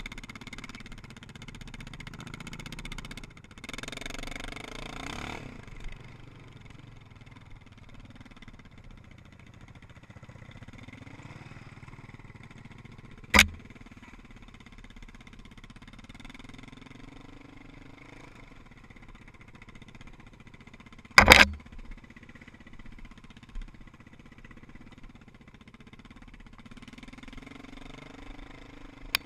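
Quad ATV engine running as the machine rides a rough dirt trail, its pitch drifting up and down with the throttle. Two loud, sharp knocks cut through, about halfway through and again about two-thirds of the way in.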